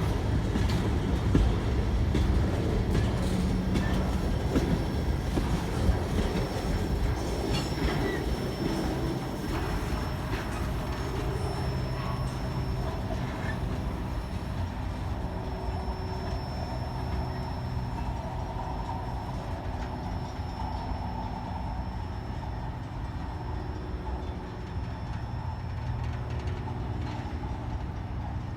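Train cars rolling past with a steady rumble and wheel clatter, a thin wheel squeal running over it, slowly fading.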